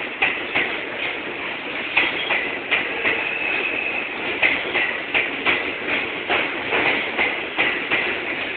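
R142 subway train running along the station platform, its steel wheels clicking over rail joints every third of a second or so, coming a little faster later on. A steady high whine rises over the rumble for about a second, midway through.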